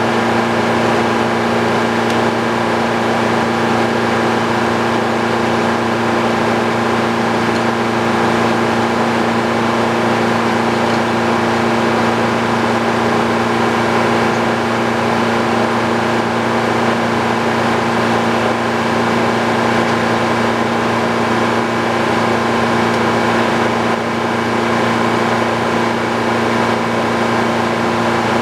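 Old Frick sawmill running steadily at constant speed, its engine and spinning saw giving a steady hum with several held tones.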